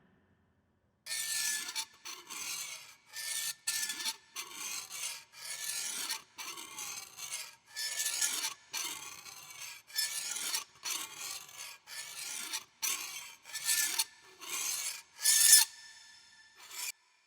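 Rasping, scraping strokes repeated about once a second, around fifteen in all, each carrying a faint metallic ring; the loudest stroke comes near the end.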